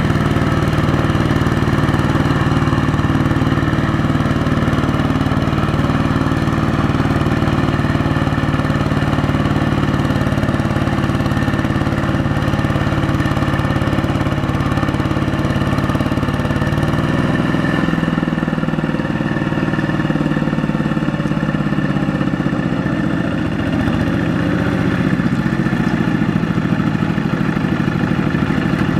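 Single-cylinder diesel engine of a two-wheel walking tractor running steadily under load as it drags a trailer of rice sacks through deep, sticky mud. Its low note shifts about two-thirds of the way through.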